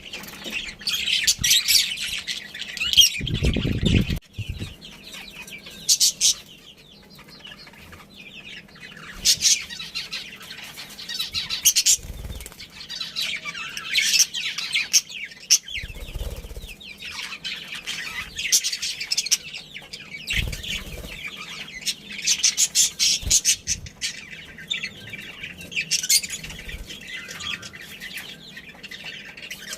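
Budgies chattering, with rapid high chirps and squawks coming in clusters. A few short low thumps sound in between, the loudest about three to four seconds in.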